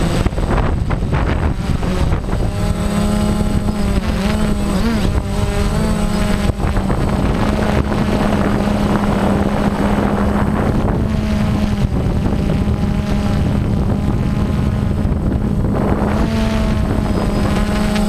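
DJI Phantom quadcopter's electric motors and propellers humming steadily in flight, heard from on board, with heavy wind buffeting on the microphone. The pitch wavers briefly about four to five seconds in as the motors adjust their speed.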